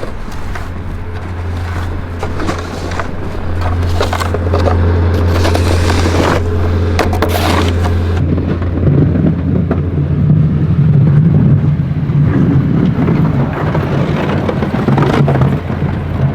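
Snowplow truck running, a steady low engine drone, with scraping and crackling through the middle. About nine seconds in a higher engine tone joins and holds.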